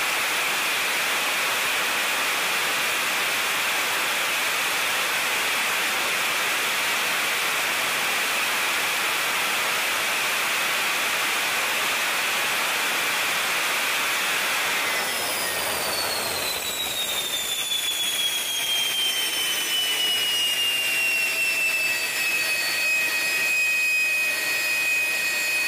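General Electric F101 afterburning turbofan running at high power with a steady roar. About fifteen seconds in the roar drops away as the engine throttles back, and a whine falls in pitch, then settles and holds steady.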